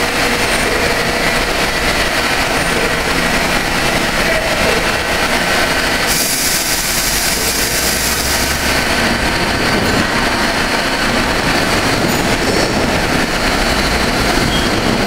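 Steady mechanical running noise of a vertical machining center with its automatic pallet changer, a continuous hum and hiss that turns brighter and hissier for a couple of seconds about six seconds in.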